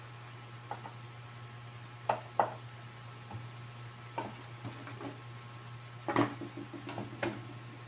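Scattered clicks and knocks of small parts and tools being handled on an electronics repair bench, with louder knocks about two seconds in and about six seconds in, over a steady low electrical hum.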